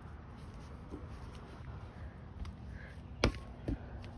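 Two sharp smacks of a rubber playground ball in play on a concrete driveway, about three seconds in and half a second apart, the first the louder, over a faint steady background.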